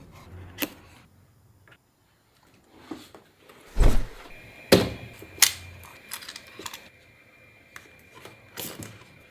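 Hands handling a toy's cardboard box and packaging: scattered clicks and taps, with a dull thump about four seconds in.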